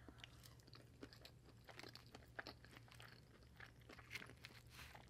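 Faint close-up chewing of a mouthful of pulled pork poutine fries: scattered small clicks and soft crunches throughout.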